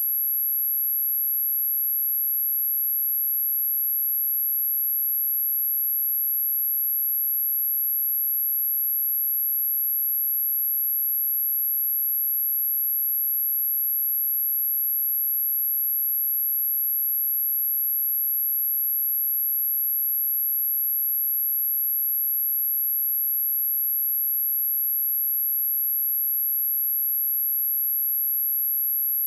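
A pure 11632 Hz sine tone, a single high-pitched whine held steady at one pitch and level, with nothing else. It is a speaker test tone, also played to shake water and dust out of a speaker.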